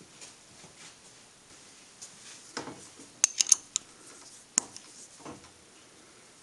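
Sharp metallic clicks of a steel hex key in the adjusting screw of a boring head on a milling machine spindle, as the cutter is set: a soft rattle, then four quick clicks a little after three seconds in and one more about a second later.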